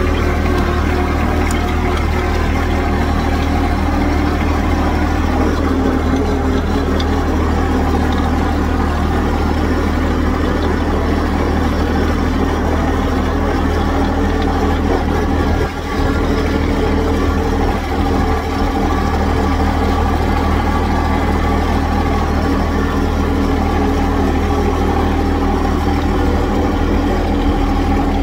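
John Deere compact tractor engine running steadily at an even pitch while the tractor is driven, with a brief dip a little past the middle.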